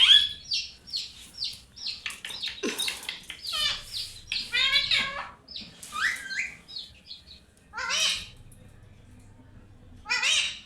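Pet parrot calling in a rapid series of short, high chirps and squawks that bend in pitch. It pauses for about two seconds near the end, then calls once more.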